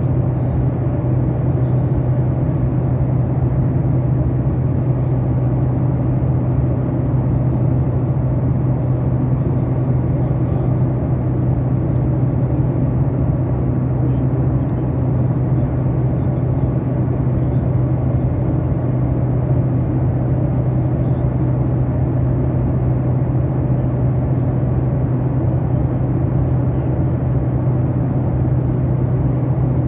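Steady low drone of an airliner cabin in flight: engine and airflow noise with a strong low hum, unchanging throughout.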